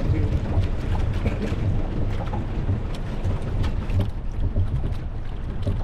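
Steady low rumble of wind buffeting the microphone on a fishing boat at sea, with a few faint clicks.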